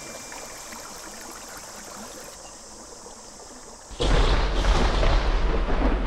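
Rushing stream water, a steady hiss, for about four seconds; then the sound cuts suddenly to a loud thunderstorm, deep rumbling thunder over heavy rain.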